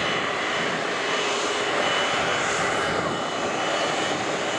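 Jet airliner engines running, a loud steady rush of noise with a faint high whine.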